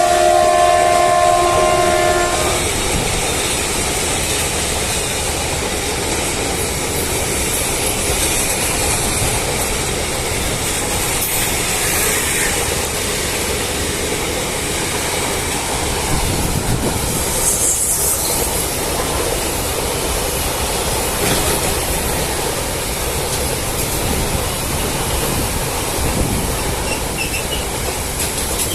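WDG4G diesel locomotive's horn sounding a chord of several tones, cutting off about two seconds in. After that comes a steady rumble and clatter of the goods train's wagons rolling past on the rails, with a couple of brief high wheel squeals midway.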